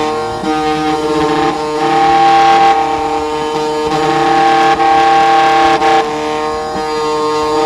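Condor XC Mini automatic key cutting machine milling a key blank: a steady motor whine from the cutter that shifts and dips slightly several times as the cut goes on, then falls away at the very end.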